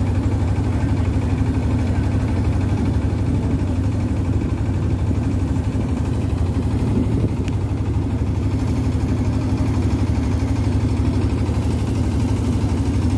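A river boat's engine running steadily, a constant low drone with no change in speed.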